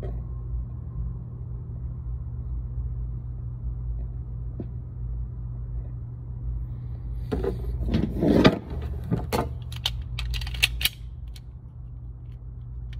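Metallic clicks and rattles of a pistol and its magazines being handled on a shooting bench, bunched together from about seven to eleven seconds in, over a steady low hum.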